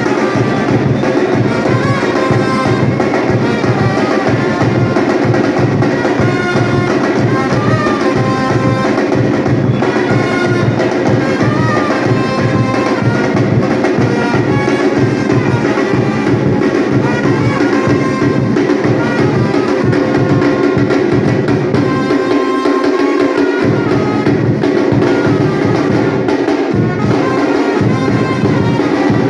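Batucada drum ensemble playing a dense, driving rhythm under music with a melody line. The low drums drop out briefly twice in the second half.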